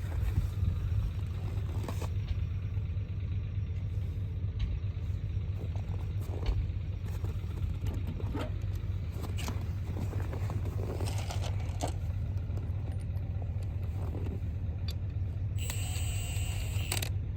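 A vehicle engine idling steadily, with scattered clinks and scrapes over it. Near the end a steady high-pitched whine starts.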